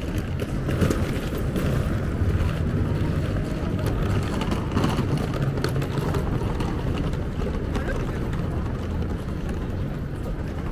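Busy city street ambience: many passers-by talking over a steady low rumble of traffic, with scattered short clicks.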